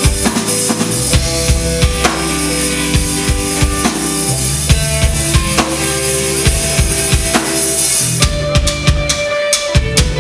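Live rock band playing an instrumental passage: drum kit with kick and snare, electric bass and electric guitar. The high cymbal wash stops about eight seconds in, leaving the drum hits and held guitar and bass notes.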